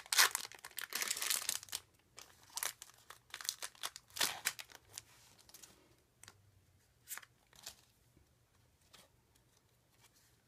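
A foil Pokémon trading-card booster pack being torn open and crinkled, loudest in the first two seconds. Fainter crinkles and soft clicks follow as the cards are slid out and handled.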